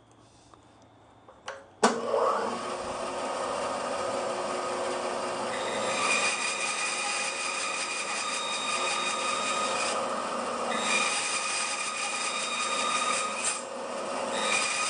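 Bandsaw starting with a sharp click about two seconds in, then running steadily. The blade cuts into wood for the tenon cheeks, adding a brighter, louder whine in stretches from about six seconds in, easing briefly twice.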